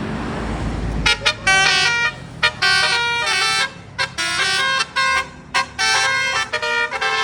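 Bus 'telolet' Basuri multi-trumpet musical air horn playing a quick tune of short and held notes that change pitch. It starts about a second in, after a moment of engine and road rumble.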